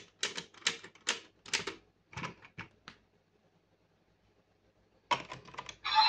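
Hard plastic clicking from a DX Fever Slot Raise Buckle toy being turned and worked on its belt driver. There is a run of separate clicks over the first three seconds, then a quick cluster of clicks near the end.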